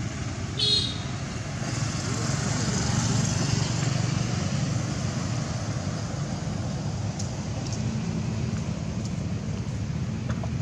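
Road vehicle running along the road, a steady low rumble that swells a few seconds in, with a short high squeal about a second in.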